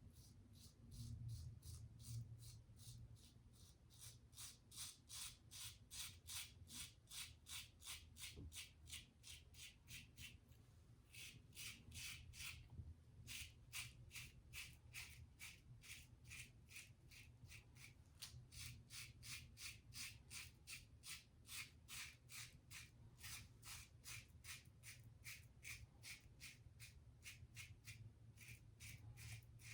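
Short, rapid scraping strokes of a Gillette Tech fat handle safety razor, fitted with a 3D-printed base plate, cutting through lathered stubble, about three strokes a second with a few short pauses.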